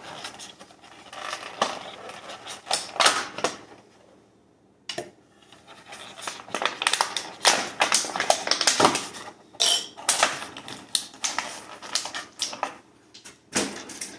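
Clear plastic toy packaging crinkling and clicking as it is handled and pulled apart to free a small action figure, in quick runs of crackles with a short pause about four seconds in.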